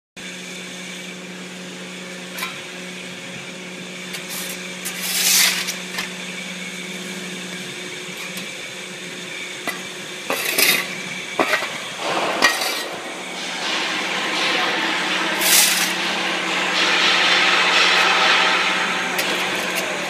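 Metallic clanks and clatter at a charcoal carbonization furnace's burning fire door, a few irregular knocks over a steady hum. A rushing hiss builds in the last few seconds.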